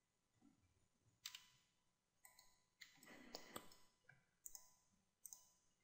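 Near silence broken by a few faint, scattered clicks of a computer mouse and keyboard being worked.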